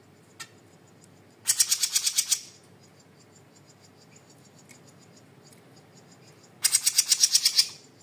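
Small caged songbird giving two loud, rapid rattling trills, each about a second of some ten quick sharp notes, the second about five seconds after the first. Crickets chirp faintly in between.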